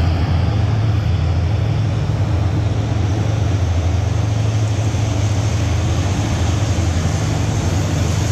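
Steady low engine drone with road-traffic noise, unchanging in level throughout.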